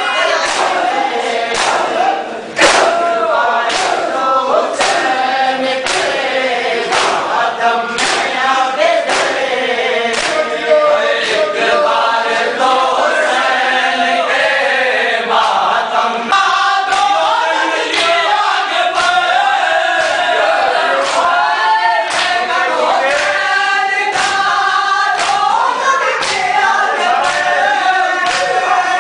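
Crowd of men chanting a noha (Shia lament) in unison, with the sharp slaps of hands beating chests in matam at a steady beat, a little more than one a second.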